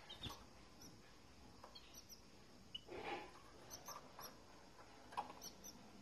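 Canaries at a nest giving faint, short high-pitched cheeps, often in quick pairs, several times. Soft rustles and a few light taps come from the birds moving in the cage, with a brief rustle about three seconds in.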